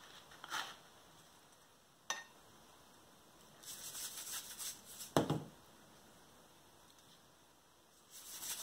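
Soft gritty rustling of hands pressing a cashew crumb coating onto a cauliflower steak on a ceramic plate, with a sharp click about two seconds in and a short thump just after five seconds. A salt shaker is shaken near the end.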